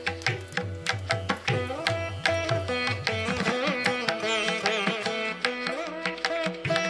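Instrumental background music in Indian classical style: a plucked-string melody with bending notes over a steady drone, with hand-drum strokes.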